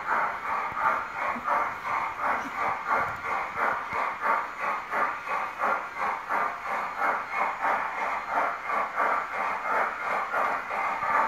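LGB garden-scale model train running along its track, a steady rhythmic pulsing at about two to three beats a second.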